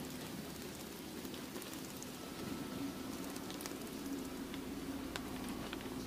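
Sparrows splashing as they bathe in a shallow basin of water: a scattered patter of small splashes and drips over a steady low background rumble.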